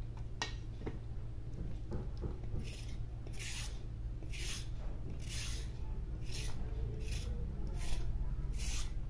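Metal vegetable peeler scraping the skin off a red carrot in repeated strokes: a rasping scrape about once a second, starting a couple of seconds in, over a steady low hum.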